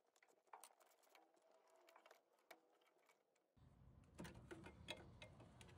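Near silence, with faint scattered clicks, then soft rustling and small clicks from about four seconds in as hands handle rubber fuel hoses.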